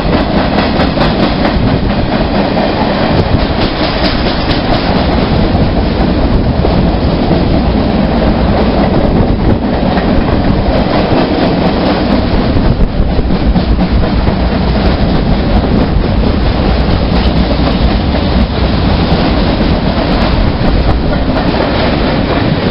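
A train passing close by at speed, its wheels clattering steadily over the rail joints.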